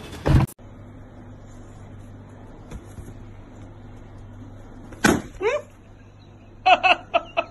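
A confetti-filled balloon popping with one sharp bang about five seconds in, followed at once by a short falling cry and, near the end, a few more short high cries. Before the pop there is only a faint steady hum, after a brief loud burst at the very start.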